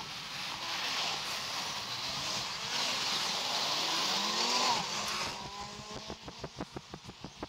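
Road traffic passing close by, loudest as a van goes past with its engine and tyre note falling in pitch about four to five seconds in. After that comes a regular ticking, about four a second.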